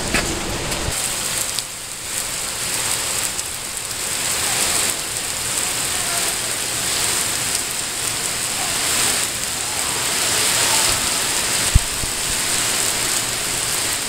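Heavy rain pouring steadily onto wet pavement, an even hiss of falling water. One short thump near the end.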